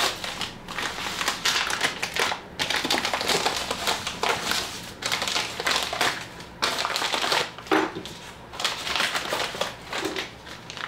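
A shipping package being torn open and rummaged through: its box and wrapping crinkle, crackle and tear in irregular fits and starts.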